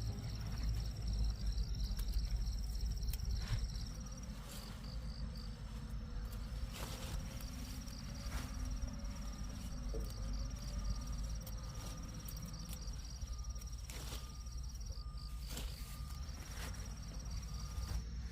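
High, steady insect trill that breaks off twice and resumes, over a low rumble and a few scattered clicks.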